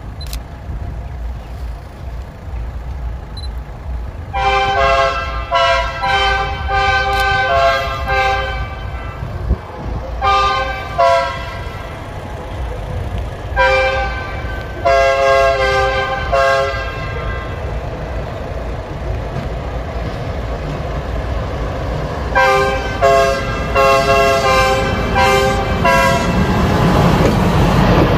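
Electric locomotive's horn sounding in several groups of short, repeated blasts as it approaches. Near the end the rumble of the locomotive itself rises as it draws level.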